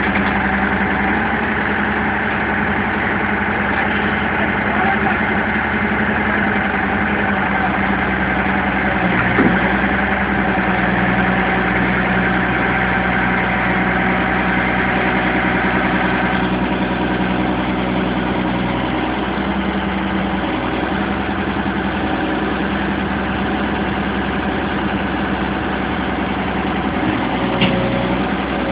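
Hitachi hydraulic excavator's diesel engine running steadily. A higher hiss drops away a little past halfway, and two short knocks come through, one about a third of the way in and one near the end.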